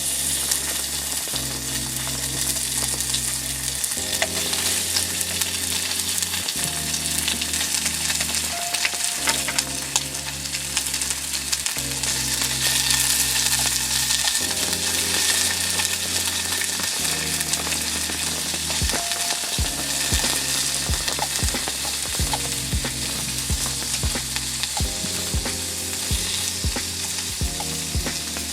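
Food sizzling as it fries in a pan: a steady hiss. Background music with sustained chords runs under it, and a regular beat comes in about two-thirds of the way through.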